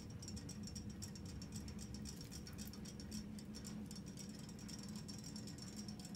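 Robotic toy fish swimming in a shallow glass dish of water, their little motors and flapping tails making a faint, fast rattling tick.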